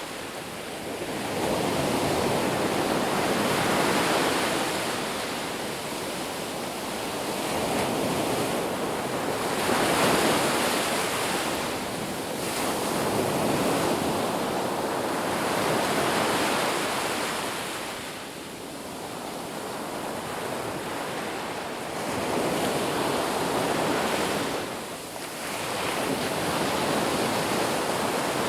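Ocean surf on a beach: a steady rush of waves that swells and falls back every few seconds as each wave breaks and washes up.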